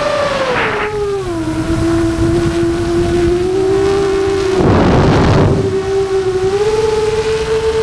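A radio-controlled car's motor whining steadily. The pitch drops about a second in and rises again late on, and a brief rushing noise swells and fades about five seconds in.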